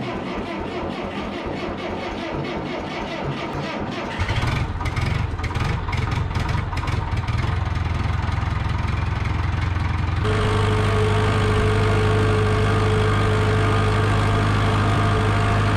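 International Hydro 84 tractor's diesel engine starting: it turns over unevenly, then catches and runs louder about four seconds in. About ten seconds in its note steps up to a steady run with a constant whine over it.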